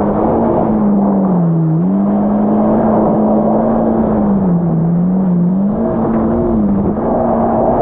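Yamaha GP1800R SVHO jet ski's supercharged four-cylinder engine running under way over a steady rushing noise. Its note falls and rises several times as the throttle is eased and opened again.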